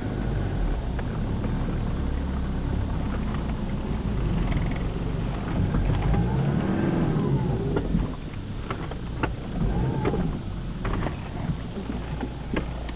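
4WD engine heard from inside the cabin, its pitch rising and falling as it works up a rough dirt track, with knocks and rattles over the bumps in the second half.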